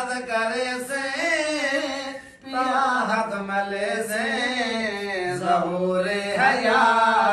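A man's voice singing a Punjabi naat unaccompanied, in long, wavering held notes, with a brief breath pause about two seconds in.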